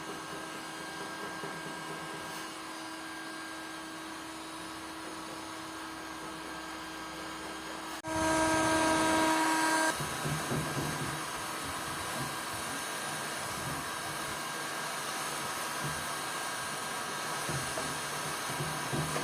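Electric power tool motor running with a steady whine. About eight seconds in it jumps abruptly to a louder run, and after about two seconds it changes to a rougher, uneven sound with low pulses.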